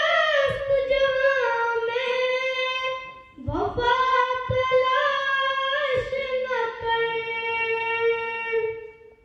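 A single high voice singing unaccompanied, holding long drawn-out notes in two phrases, with a short break about three seconds in. The second phrase is held for about five seconds and fades out near the end.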